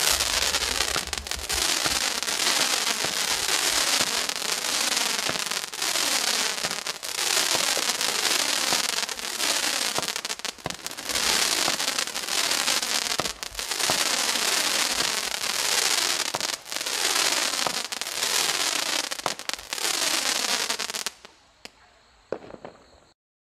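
Benwell Fireworks 'Martian Invaders' 19-shot barrage cake firing: a continuous run of shots with dense hissing and crackling and repeated tones sliding down in pitch, stopping about 21 seconds in.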